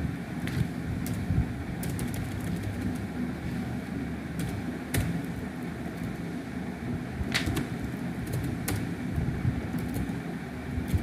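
Computer keyboard keys clicking at irregular moments as text is typed, over a steady low background rumble.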